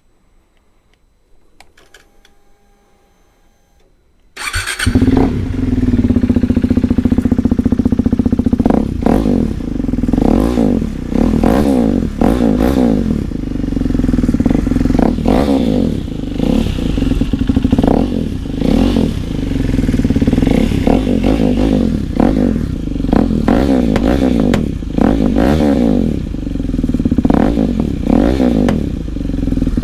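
KTM Duke 390 single-cylinder engine on a slip-on exhaust with the baffle removed, starting suddenly about four seconds in and then running while the throttle is blipped again and again, the revs rising and falling. It gives loud pops and bangs from the open exhaust.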